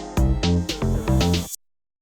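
Background electronic music with a steady beat and bass notes that cuts off abruptly partway through, leaving total silence.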